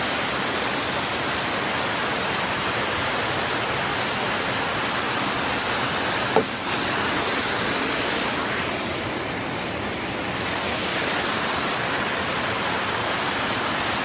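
Waterfall rushing: a steady, even roar of falling water, with one brief click about six seconds in.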